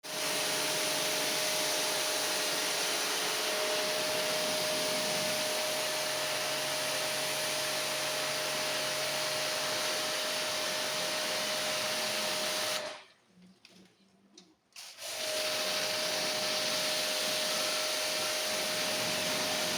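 Power cleaning tool running, a steady hissing rush with a constant high whine. It cuts out about 13 seconds in and starts again about two seconds later.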